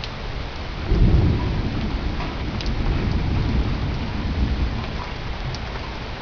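Heavy thunderstorm: rain falling steadily, and a clap of thunder that breaks suddenly about a second in and rolls on as a deep rumble, fading over several seconds.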